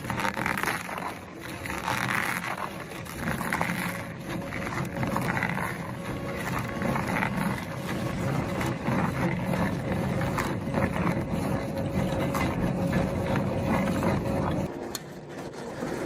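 Heavy shredding machine running under load, with a grinding noise that swells and fades about every second and a half at first, then a steady heavy rumble with a constant hum. The load eases off near the end.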